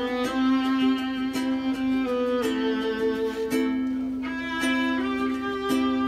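Live acoustic duo: a violin plays a slow melody of held, bowed notes over chords strummed on a ukulele.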